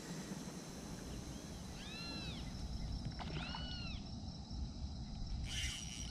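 An animal calling: three drawn-out calls, each rising and then falling in pitch, about a second and a half apart, over a steady low rumble.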